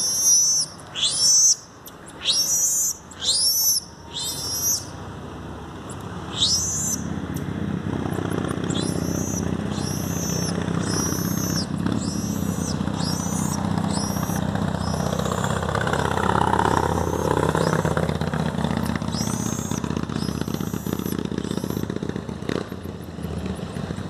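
Marmoset giving a series of short, very high-pitched calls, one every second or two, typical of a frightened monkey after an electric shock. A vehicle passes on the road at the same time, its noise building and loudest about two-thirds of the way through.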